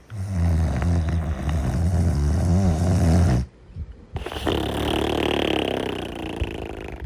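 Snoring in sleep: a loud, low snore lasting about three seconds, a short pause, then a softer, breathier second snore.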